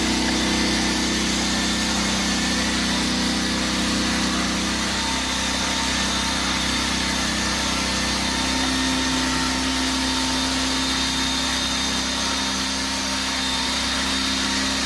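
Sawmill running with a steady mechanical drone, its tone shifting slightly about halfway through.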